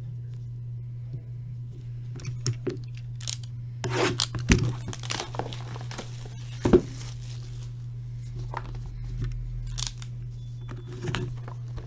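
Plastic wrapping on a sealed trading card box being torn and crinkled open. The crackling is heaviest in the middle, with a few sharper clicks later, over a steady low hum.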